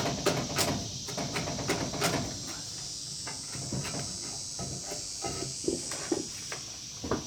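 Irregular sharp knocks and chops of hand tools cutting into a pine beam, a few strikes a second, over a steady high-pitched buzz.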